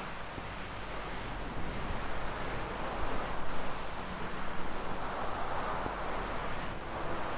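Fluffy material rubbed over the ears of a 3Dio binaural microphone: a soft, rushing swish in slow strokes that swell and fade.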